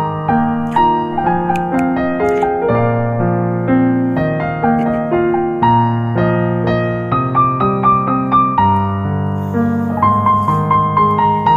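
Background music: a gentle piano tune with a melody over slow, held bass notes.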